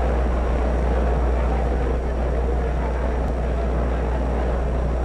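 Steady noise with a constant low hum underneath, from an old film soundtrack, with no break or change.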